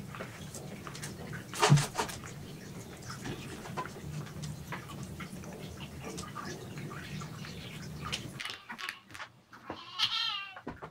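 Cats moving about with scattered light taps and clicks over a steady low room hum, and a loud thump about two seconds in. Near the end, a cat meows once.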